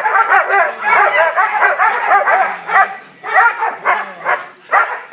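Young German shepherds barking in a fast, excited run, about five barks a second, with two brief pauses.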